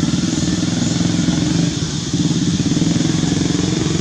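Motorcycle engine running steadily at a constant speed with a fast, even putter, dipping briefly about two seconds in.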